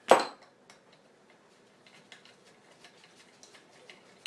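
A sharp metallic clank at the start, then a run of light, irregular clicks and ticks from hand tools working a bolt out of a small scooter engine's case.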